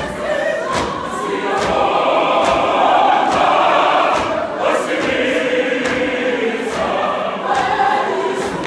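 A congregation's choir of many voices singing a hymn together in long held notes, swelling about a second in, with soft knocks keeping a slow, even beat underneath.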